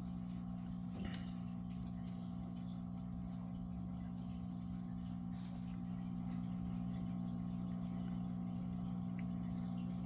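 Steady low background hum of room noise, with a faint click about a second in.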